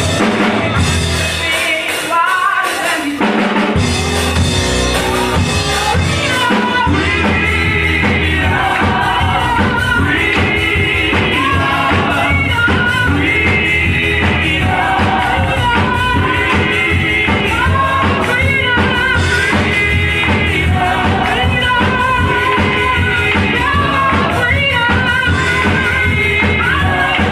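Live gospel praise-and-worship singing: women's voices through microphones over band accompaniment with a steady beat. The bass drops out briefly about two seconds in, then the full band comes back in.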